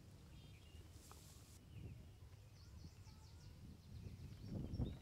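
Faint outdoor ambience: scattered short bird chirps over a steady low rumble, with a brief louder low swell shortly before the end.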